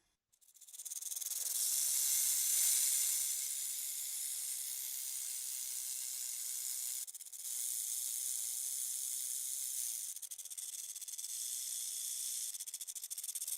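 Snake hissing: a long, high-pitched hiss that swells in over the first second, breaks off briefly about seven seconds in, and turns grainier and flickering near the end.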